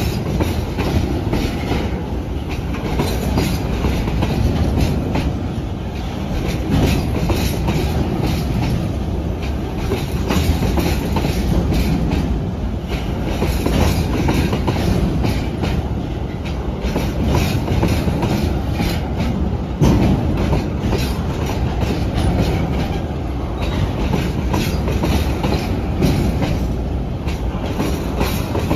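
Train rolling past with its wheels clicking over the rail joints, loud and steady.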